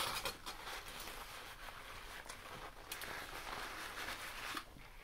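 Close-miked chewing of a bacon, lettuce and tomato sub sandwich: a continuous run of small wet clicks and crackles, stopping shortly before the end.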